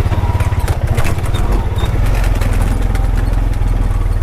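Honda Pioneer 520 side-by-side's engine running steadily while the machine is driven, with scattered knocks and rattles from the vehicle over rough ground.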